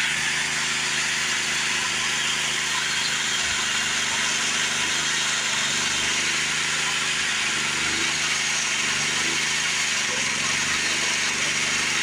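A homemade sawmill's engine running steadily, with a wide hiss over its even low hum.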